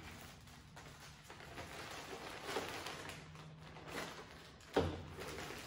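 Clear plastic zip-top bag rustling and crinkling as it is handled, with one sharp thump near the end.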